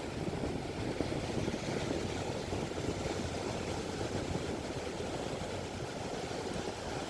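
Ocean surf breaking on a beach in stormy weather: a steady rushing noise with no pauses, heaviest in the low range.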